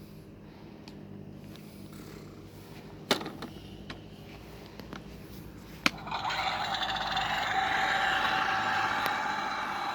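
Two sharp clicks, then about six seconds in a Husqvarna children's toy lawn mower starts its electronic engine sound effect, which runs on steadily.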